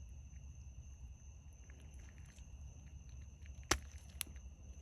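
Faint handling ticks, then a sharp click about three and a half seconds in and a lighter one half a second later, from washer suspension rod parts being fitted together to line up the pin hole, over a low steady hum.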